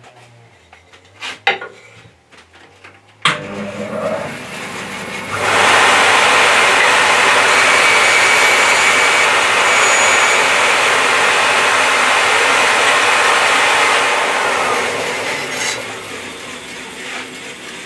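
Record Power BS350 14-inch bandsaw switched on with a click about three seconds in, its motor running up, then cutting through a piece of timber pushed against the fence for about eight seconds. The noise eases off near the end as the cut finishes. Light knocks of the wood being handled come before the start.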